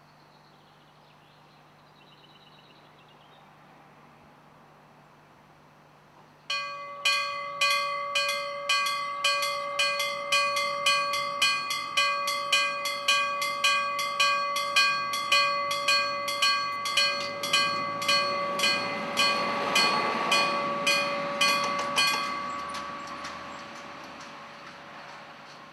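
Level-crossing warning bell starting suddenly and striking about twice a second, each stroke ringing on, as the crossing barriers lower; the strikes stop after about fifteen seconds, once the barriers are down. A swell of rushing noise rises under the bell shortly before it stops and then fades.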